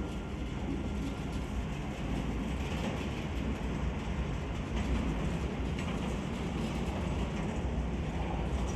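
Passenger train moving past with a steady rumble of wheels on rails.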